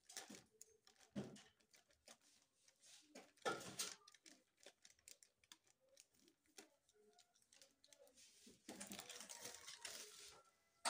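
Faint crinkling and rustling of a paper bag of pancake mix handled and shaken as the powder pours into a plastic measuring cup, in scattered short bursts, with a longer stretch of rustling near the end.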